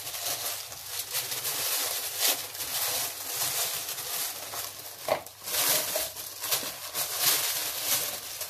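Tissue paper rustling and crinkling as it is handled and pulled out of a cardboard box, with a steady run of small crackles.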